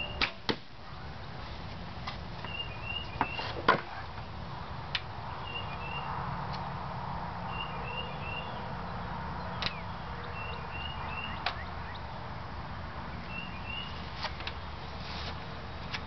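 A homemade PVC recurve bow is shot: the bowstring is released with a sharp crack just after the start, with a second crack a fraction of a second later. Scattered clicks and knocks follow, the loudest about four seconds in. A bird repeats a short chirping phrase every second or two.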